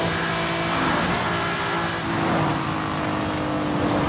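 Race car engine running at a steady high pitch, with a constant hiss over it.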